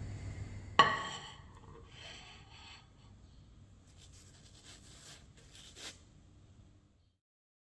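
A low hum that stops with a sharp clink about a second in, ringing briefly, followed by soft rustling and rubbing as a hand squeezes and handles the crusty pan-cooked flatbreads.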